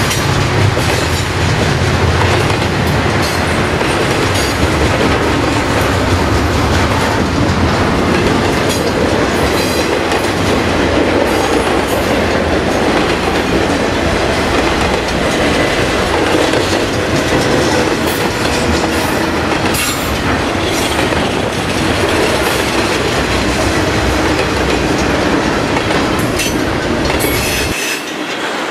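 Double-stack intermodal container cars of a long freight train rolling past close by: a steady rumble and clatter of steel wheels on the rails. Near the end the sound drops quieter and loses its low rumble.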